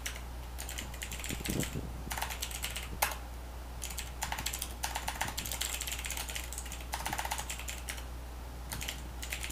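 Computer keyboard typing in quick runs of keystrokes with short pauses between them, over a low steady hum.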